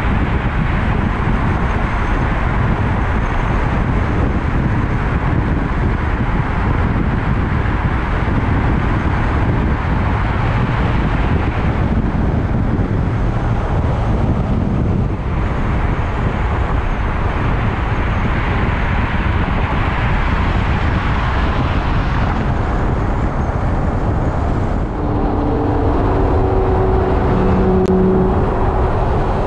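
Loud, steady wind rush and road noise at expressway speed, heard from a camera mounted on the outside of a moving car, mixed with engine noise. In the last few seconds a steady engine hum rises out of the noise.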